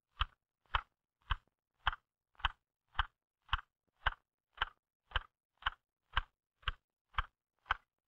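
L.C. Smith typewriter keys struck one at a time in a steady, even rhythm, just under two strokes a second, each a sharp clack of the typebar. It is a slow home-row drill for precision and rhythm, the fingers striking the keys alternately from the outside in and out again.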